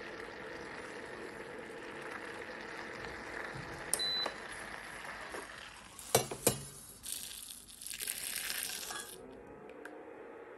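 Milk and cream heating in a stainless saucepan on an induction cooktop, its fan running steadily. About four seconds in the cooktop gives one short beep as it is switched off, then the pan clinks twice against metal and the hot liquid pours into a stainless steel bowl for a couple of seconds.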